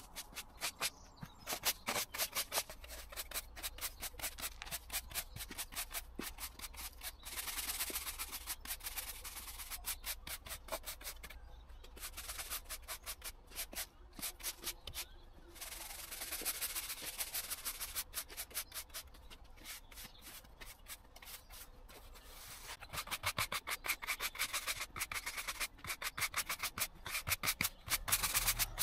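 Stiff-bristled push broom sweeping grit and leaf debris across a tarmac footpath: a fast run of short, scratchy strokes, with two brief pauses around the middle.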